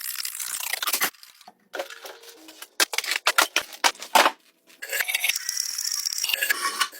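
Woodworking handling noises: a dense run of sharp clicks and crackles, scattered clicks and knocks, then a stretch of hissing scraping or tearing.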